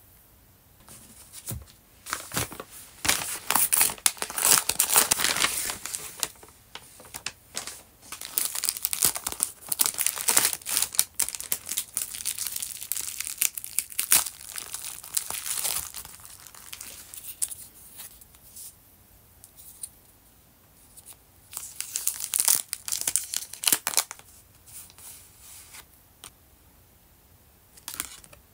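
Crinkling and rustling of plastic packaging as it is handled and unwrapped, a padded plastic bag and thin clear plastic card sleeves, in several bursts with short pauses between.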